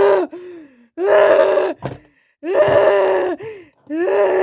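A child's voice wailing in a string of long, loud cries, each held at one steady pitch with short breaks between them.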